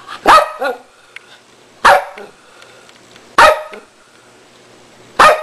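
A dog barking: four sharp barks about a second and a half apart, the first followed by a shorter second yelp.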